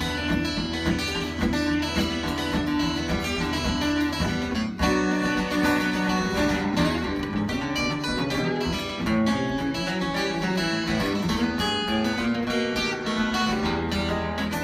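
A live band playing an instrumental break in a gospel song, guitar-led over a steady bass line.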